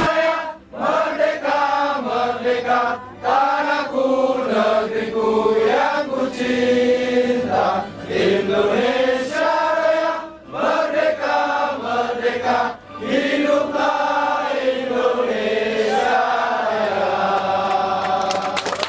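Singing voices carrying a melody in phrases of held notes, with short breaks between the phrases.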